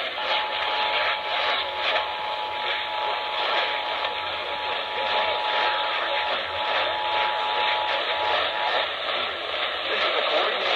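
Emergency Alert System two-tone attention signal, heard faintly under heavy radio static. The tones stop about eight and a half seconds in, and the static goes on.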